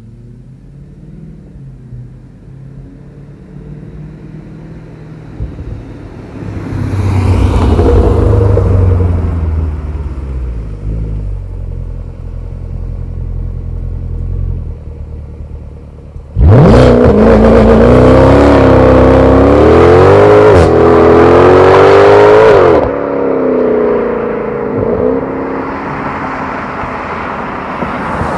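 Mercedes-Benz W204 C63's V8, with a Renntech secondary cat delete and X-pipe exhaust, launching at full throttle. After a lower rumble that swells for a few seconds early on, the engine suddenly goes flat out a little past halfway in. It climbs in pitch through several quick gear changes for about six seconds, then drops back to a lower rumble.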